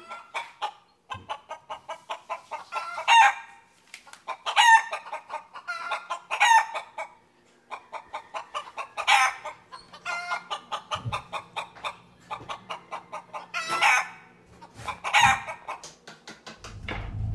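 Clucking and squawking calls: runs of quick, short clucks, several a second, broken every few seconds by louder squawks that rise and fall in pitch.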